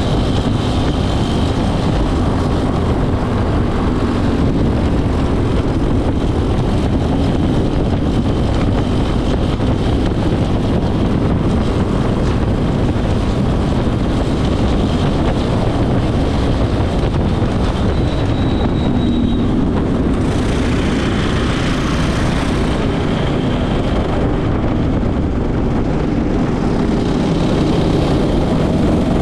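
A racing go-kart's engine runs steadily, heard from the kart's onboard camera, with a constant rush of wind and track noise over it.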